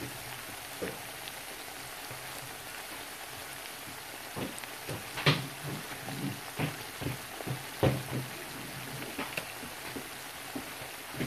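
Onions frying in palm oil in a wok, a steady sizzle. From about four seconds in come irregular knocks and scrapes of a wooden spoon against the wok as the mashed garden egg and pepper mixture is added.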